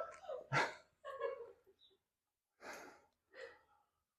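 Four short, breathy exhalations, the loudest about half a second in, the rest fainter.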